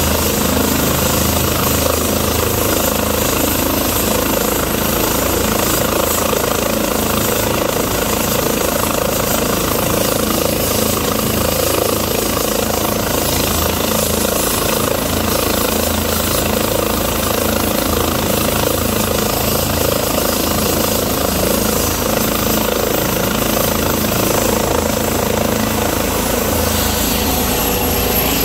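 Airbus EC135 twin-turbine air-ambulance helicopter running on the ground with its rotors turning, a loud, steady mix of turbine and rotor noise ahead of takeoff.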